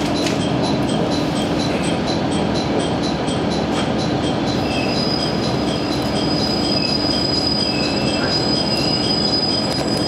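Cabin noise of a KiHa 110 series diesel railcar: a steady rumble of wheels on rail and running gear. About halfway through, a high, steady squeal sets in with a few short wavering squeals above it, typical of brakes and wheels as the railcar slows through the station.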